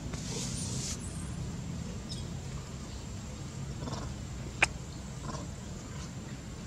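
Steady low outdoor rumble with a few faint short macaque calls, and one sharp click about four and a half seconds in.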